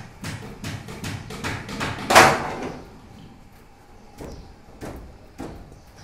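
Hard knocks of bamboo props and wooden shuttering being struck and worked loose, about three a second at first, with the loudest knock about two seconds in ringing briefly, then a few scattered knocks.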